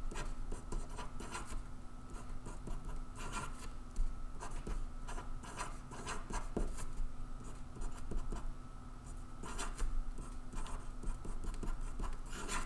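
Marker pen writing and drawing circles on paper: short scratching strokes coming in irregular bursts, over a faint steady hum.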